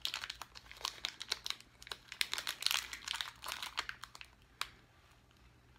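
Candy wrapper of a peanut toffee bar crinkling and crackling in irregular bursts as it is worked open by hand, dying away about three-quarters of the way through.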